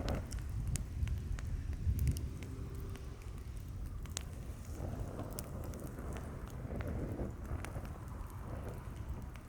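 Large log bonfire crackling, with scattered sharp pops over a low steady rumble.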